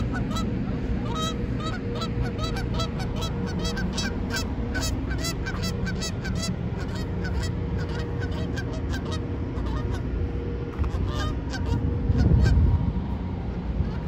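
Canada geese honking over and over, several calls a second, the calling thinning out about ten seconds in with a few more calls just after. A steady low rumble runs underneath and swells briefly near the end.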